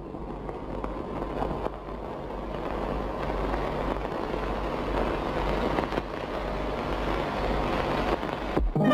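A steady rushing noise over a low rumble, with no tune in it, slowly growing louder and cutting off abruptly near the end.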